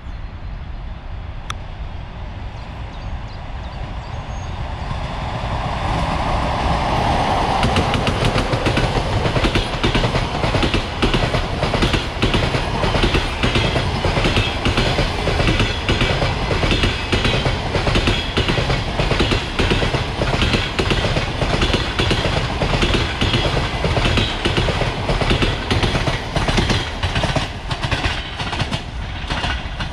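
Passenger train coaches rolling past close by. The wheels clatter over the rail joints in a steady run of clicks, building up over the first several seconds as the train arrives.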